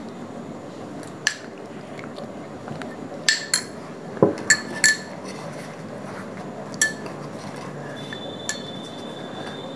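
A metal spoon clinking against small glass bowls as dal makhni is spooned out onto rumali roti: about eight sharp, separate clinks, most of them bunched together a few seconds in.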